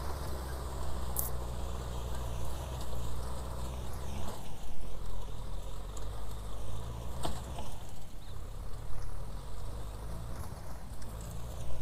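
Kubota M6040SU tractor's four-cylinder diesel engine running steadily under load as it pulls a rear rotary tiller through dry ground. Its note shifts to a lower pitch about four seconds in.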